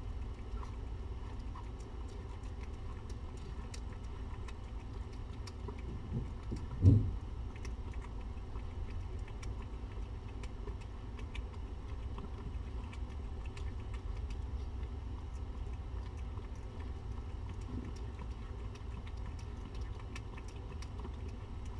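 A cat eating wet food from a metal bowl: a run of faint, quick chewing and licking clicks over a steady low hum, broken by one dull thump about seven seconds in.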